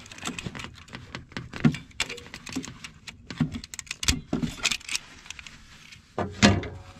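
Fuel hose being worked through the gap between a tractor's engine and frame by hand: irregular clicking, scraping and rustling, with two louder knocks near the end.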